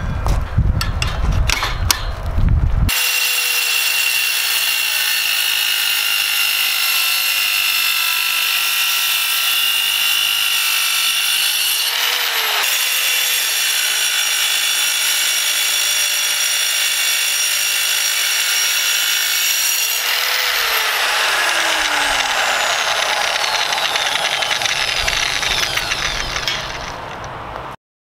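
A cutMAXX plunge saw's diamond wheel (Graff Black, 125 mm) makes a slow cut through steel: a steady high-pitched whine over a grinding hiss, dipping briefly in pitch twice. It starts after a couple of seconds of clattering knocks, and the sound stops abruptly near the end.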